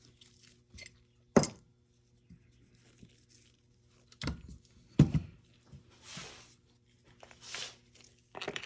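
Small tools and parts being handled and set down on a work surface: a few separate sharp clicks and knocks, the loudest about five seconds in, with two soft rustles later.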